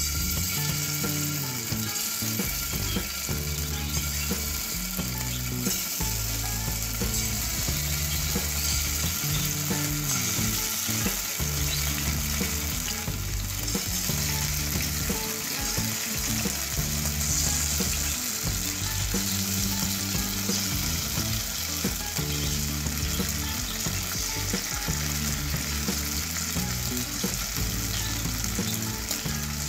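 Marinated chicken breast pieces sizzling steadily in hot oil in a non-stick frying pan as more pieces are laid in, the start of a light fry.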